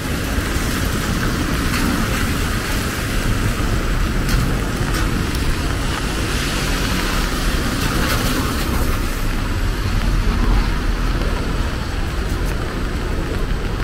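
Steady city street traffic in the rain: vehicles passing with a low rumble and a constant hiss, swelling a little about ten seconds in.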